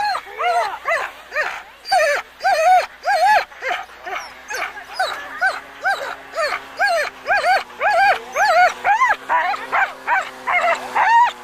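Sled dogs barking in a continuous string of short, high-pitched yelps, about two or three a second, some overlapping.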